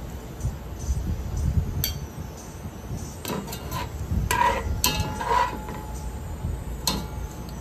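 Wire spider skimmer clinking and tapping against a ceramic plate and the rim of a metal pot while scooping fried onions out of oil: a string of sharp clinks, several with a short ringing tone, over a low steady rumble.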